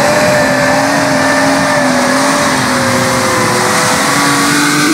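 Mitsubishi Pajero V6 engine held at high revs under heavy load, its note steady and dipping slightly in pitch near the end, with a constant hiss of tyres spinning and throwing mud.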